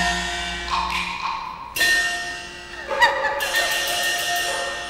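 Teochew opera percussion: ringing metal gongs struck three times, at the start, near the middle and about three seconds in. Each strike rings on with steady, bell-like tones.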